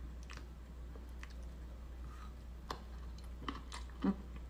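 Faint eating sounds of a person chewing noodles eaten with wooden chopsticks: small scattered mouth clicks and chopstick clicks, the strongest just after four seconds in, over a low steady hum.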